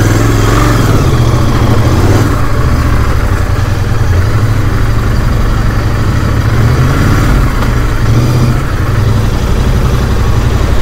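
Motorcycle riding along at a steady pace: engine running with loud, even road and wind rush, deepest at the low end.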